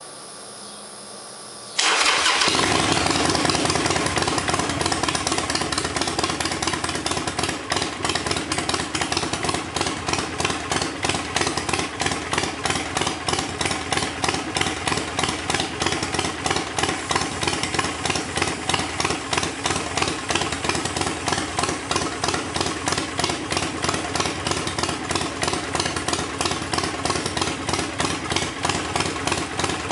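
Harley-Davidson Sportster Forty-Eight's air-cooled V-twin being started: the engine catches about two seconds in and then settles into a steady, pulsing idle through its exhaust.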